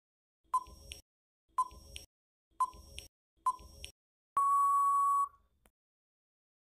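Quiz countdown-timer sound effect: four short beeps about a second apart, then one longer steady beep about four seconds in, marking time up.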